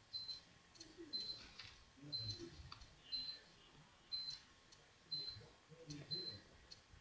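Rabbit chewing hay: faint irregular crunching clicks. A short high tick repeats evenly about once a second.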